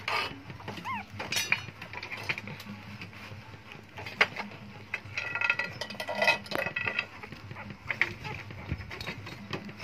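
Newborn puppies squeaking and whimpering in short high calls, loudest about halfway through, with scattered knocks and clacks of loose clay bricks being handled.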